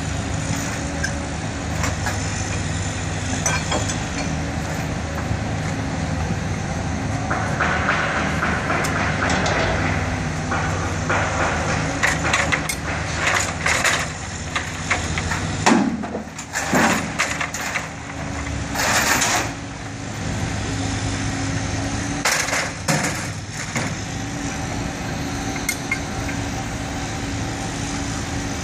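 Heavy diesel engine of a truck or crane idling steadily. Sharp metal clanks and knocks from rigging work on the trailer come in a cluster about halfway through and a couple more a little later.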